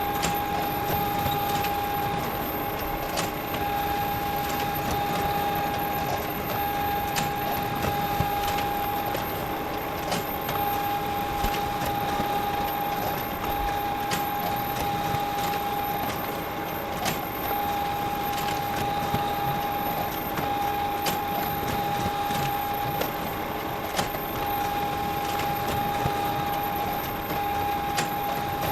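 Photocopier running continuously: a steady mechanical hum with a constant whine over it and sharp clicks about once a second.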